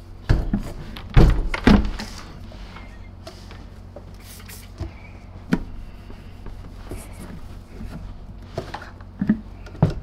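Plastic housing parts of a Zero G F3D vacuum being handled on a workbench: a few solid knocks and clunks in the first two seconds, then scattered light clicks and taps.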